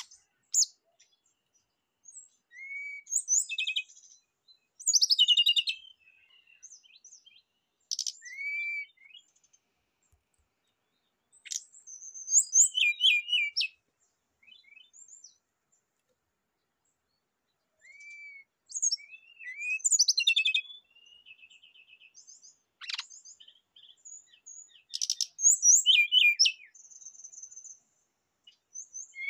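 Brown-chested jungle flycatcher singing: short, varied phrases of slurred whistles and quick trills, broken by pauses of a second or more.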